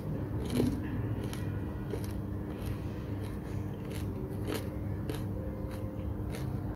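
Crisp deep-fried samosa pastry crackling and crunching in the fingers as it is broken open and handled: a string of irregular sharp crackles over a steady low hum.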